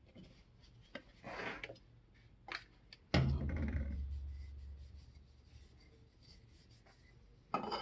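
Parts and tools being handled during a nail gun rebuild: a few light clicks and a short scrape, then a heavy thump about three seconds in with a low rumble dying away over a couple of seconds, and another knock near the end.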